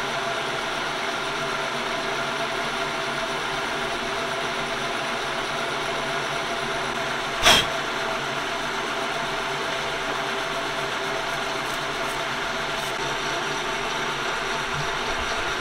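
Metal lathe running steadily with its chuck spinning while a boring bar takes a light finishing pass of about three thousandths inside a stainless steel bore: an even hum made of several steady tones. One sharp click about halfway through.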